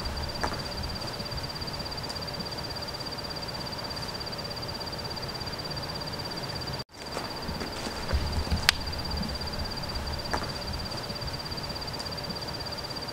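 Digging tool striking soil and stone while a trail drain is dug by hand: a few sharp knocks, the loudest about two-thirds of the way through, with dull thuds around it. A steady high-pitched buzz runs underneath, and the sound cuts out for an instant just before halfway.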